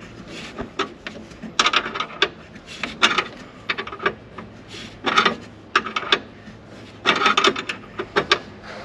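Hands working under a truck's dashboard: several bursts of rustling, scraping and small sharp clicks as wires, connectors and parts are handled and fitted.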